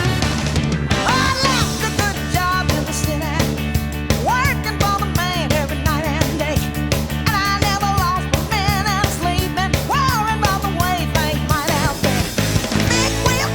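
Background rock music: a singing voice over sustained instrumental notes and a steady drum beat.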